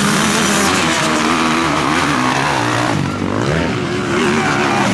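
Several motocross bikes' engines racing, the revs rising and falling as the riders accelerate, shift and back off.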